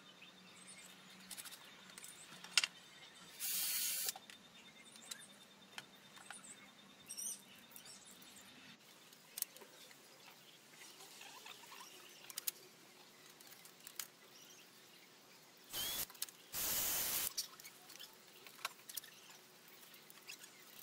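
Light clicks and knocks of bolts, nuts and tools being handled as wooden seat slats are bolted to a cast iron bench frame, with three short harsh noise bursts: one a few seconds in and two close together later on. Faint bird chirps.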